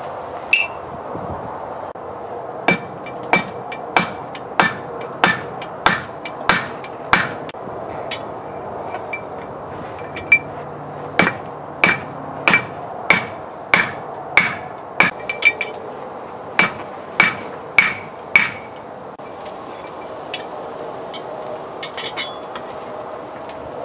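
Hand hammer striking a red-hot railroad spike on an anvil: a steady run of sharp blows, about three every two seconds, each with a ringing anvil tone, broken by a short pause partway through. The blows stop well before the end, leaving lighter taps and clinks as the spike is moved and set in the anvil's hole.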